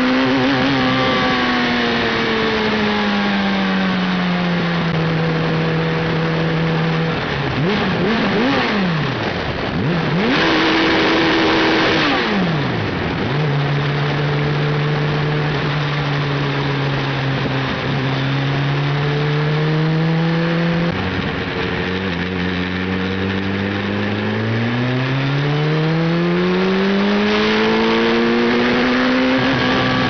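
Suzuki Hayabusa inline-four engine running on the road, its note uneven. The revs fall, hold, then swing sharply up and down for a few seconds, hold again, drop suddenly, and climb near the end. The misfiring and cutting out is the sign of an ignition failure.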